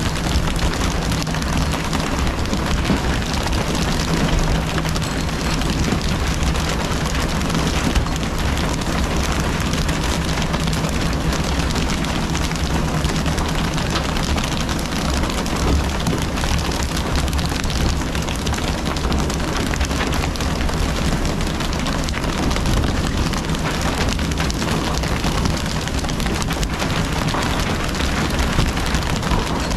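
Steady hiss and spatter of a tuna boat's water sprayers jetting onto the sea surface, which sounds like rain, over the steady low drone of the boat's engine.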